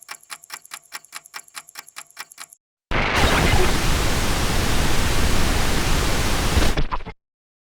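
Rapid, even electronic ticking at about seven ticks a second, stopping after about two and a half seconds. After a short gap, loud television static hiss runs for about four seconds and cuts off suddenly.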